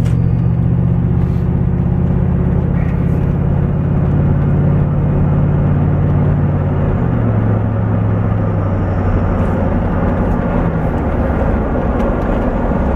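A vehicle engine and road noise while driving with a trailer in tow, a steady low hum whose note drops slightly about seven seconds in.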